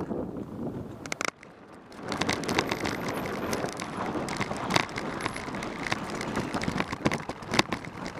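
Wind noise on the microphone, then from about two seconds in the rattle and crunch of a mountain bike rolling over a loose, rocky trail, heard from a camera riding on the bike or rider, with frequent sharp knocks from stones and the bike's frame.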